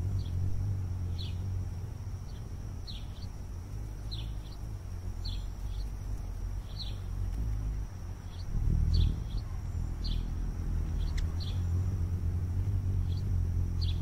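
A steady low rumble, swelling about nine seconds in, under short high bird chirps repeating roughly once a second.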